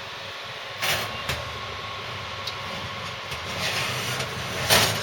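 Steady hum of a kitchen oven's fan running, with a few sharp knocks about a second in and near the end.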